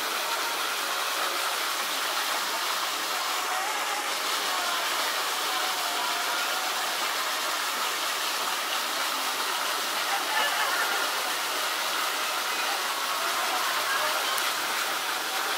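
Steady rushing noise with faint distant voices in it.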